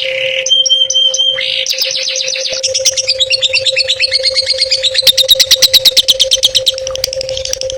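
A songbird singing a fast, varied song of chips, a short held whistle and rapid trills, loudest in a quick run of about ten notes a second past the middle. A steady low hum runs under it.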